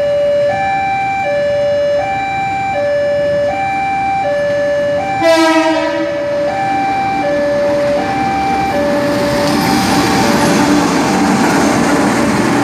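Level-crossing warning alarm sounding a steady alternating two-tone ding-dong, changing tone about every three-quarters of a second, with a short train horn sound about five seconds in. From about eight seconds in, the noise of a passenger train rolling across the crossing builds up and drowns out the alarm.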